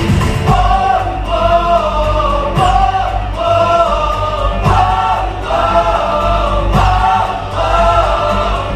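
Musical-theatre ensemble singing: two men and a woman singing together in harmony over instrumental backing, amplified through the theatre's sound system and heard from the audience.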